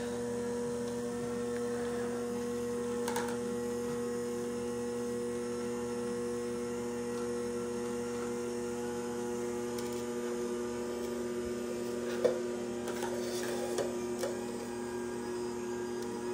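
Horizontal masticating slow juicer's motor running with a steady electric hum. A few light knocks come near the end.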